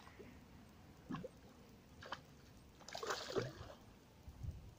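Common bream splashing at the water's surface as it is played on the line: a few brief splashes, the loudest cluster about three seconds in.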